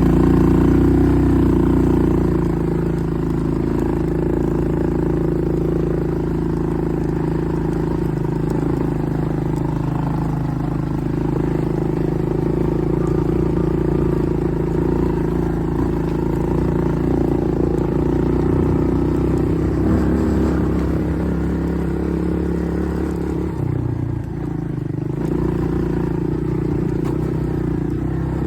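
ATV engine running steadily under way. Its note changes about twenty seconds in and drops briefly a few seconds later.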